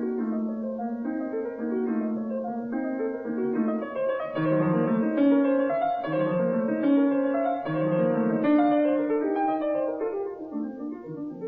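Instrumental background music, with piano playing a gentle melody over sustained chords.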